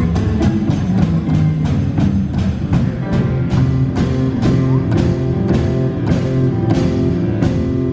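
Live rock band playing an instrumental passage: electric guitar and bass over a drum kit keeping a steady beat, with cymbal hits about twice a second in the second half.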